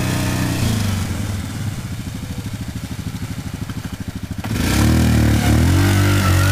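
ATV engine running at low, even revs with a steady pulse, then revving up loudly about four and a half seconds in, its pitch rising and falling as the quad accelerates.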